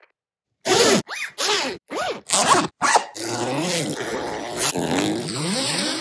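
A zipper being zipped in about five quick, separate strokes, followed by a longer continuous pull.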